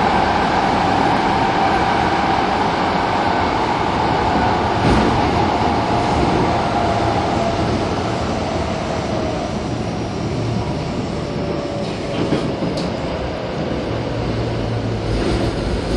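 Kobe Municipal Subway 1000 series train running, heard on board: the whine of its IGBT-VVVF inverter and traction motors over the steady wheel-on-rail rumble, the whine falling steadily in pitch as the train slows. A few clicks near the end.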